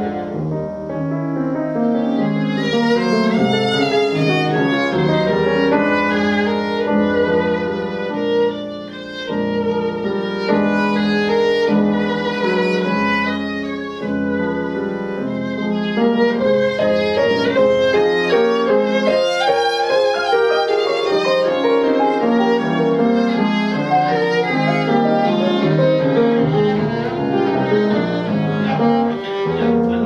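Viola played with a bow, the sustained notes wavering with vibrato over a piano accompaniment, in one continuous classical passage.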